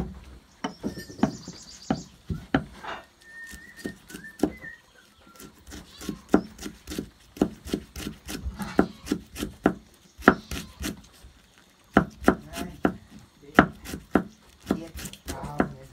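Large kitchen knife mincing lemongrass on a round wooden chopping block: a steady run of quick, irregular knocks of the blade on the wood, a few a second.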